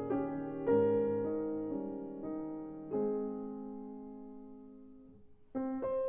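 Background piano music: a slow run of struck notes in the first three seconds, then one chord left to ring and fade for about two and a half seconds before a new chord sounds near the end.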